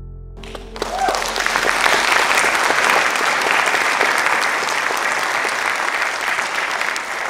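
Audience applauding, the clapping starting about half a second in as a final piano chord dies away, then continuing steadily.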